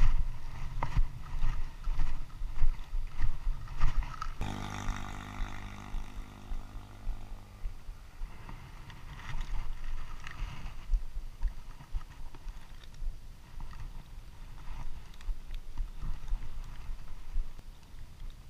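Low wind rumble and handling noise on a body-worn camera's microphone, with clicks and rustles from gloved hands working close to it. About four seconds in, a steady droning hum sets in and cuts off sharply some three seconds later.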